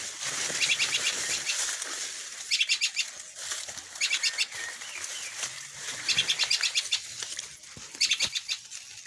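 Small birds giving short, rapid trains of high chirps, a burst every second or two, over outdoor background hiss.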